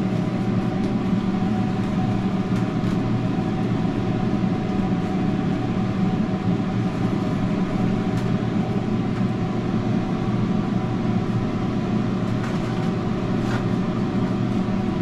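Steady low machine hum of running food-truck kitchen equipment, with a few faint crinkles of paper towels being torn off a roll and laid on the griddle.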